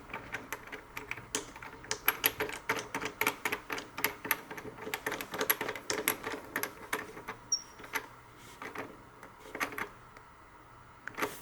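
Small aluminium parts of a switch opener clicking and clinking together in quick, irregular taps as they are handled and the lid is fitted.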